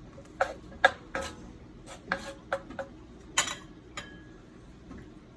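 A cooking utensil clinking against a pan, about eight sharp knocks at uneven spacing, mostly in the first four seconds.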